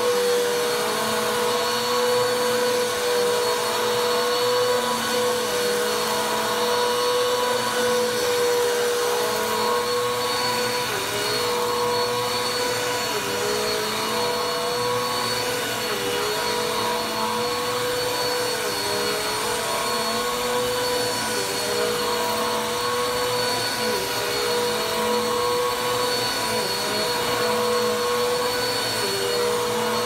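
Bissell upright vacuum cleaner running on carpet: a steady motor whine whose pitch dips slightly every second or two as it is pushed back and forth.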